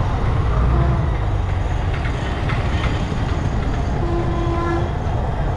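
Road noise from a moving motorbike: a steady low rumble of engine and wind, with a horn sounding for about a second around four seconds in.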